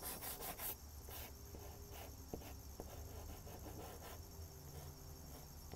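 Chalk pastel rubbing on paper in quick back-and-forth strokes, about five a second at first, then fainter and more spaced out.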